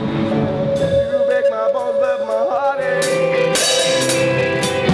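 Live band music: a held note with wavering pitched lines over it, cymbal strokes starting about a second in, and the full band with drums and low bass coming in about three seconds in.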